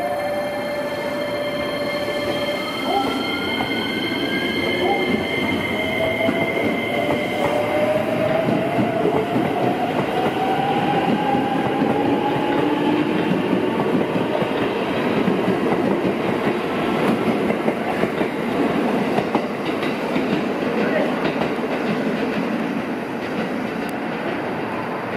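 A JR West commuter electric train pulling out, its motors whining and rising in pitch as it gathers speed, under a constant rumble of wheels on rail as the cars pass.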